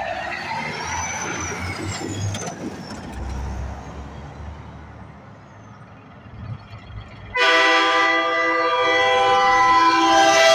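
Semi-truck engines rumbling past, then about seven seconds in a loud air horn starts abruptly and is held as a steady chord of several notes, sounded by the approaching red Peterbilt semi.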